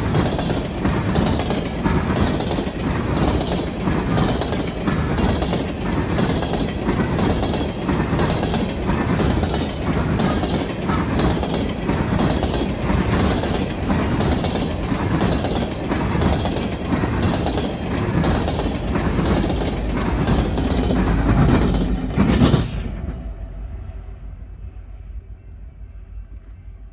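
Freight train's coal hopper cars rolling past close by, a continuous rumble with wheels clicking over the rail joints in a steady rhythm of about one and a half clicks a second. It cuts off abruptly near the end, leaving a faint steady hum of a distant diesel locomotive.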